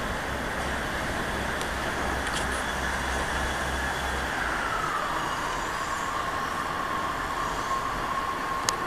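Diesel train running steadily, with a whine that falls in pitch about five seconds in and then holds level; a low hum underneath stops around the same time. A sharp click comes near the end.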